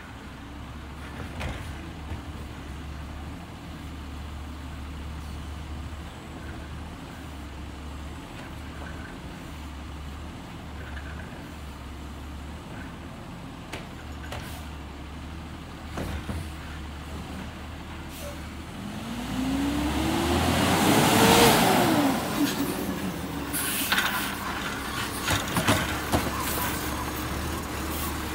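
CNG engine of a Peterbilt 320 garbage truck idling, then revving up and back down a little past the middle as the McNeilus Auto-Reach automated arm's hydraulics work. Several clunks follow near the end as the arm grips and lifts a cart.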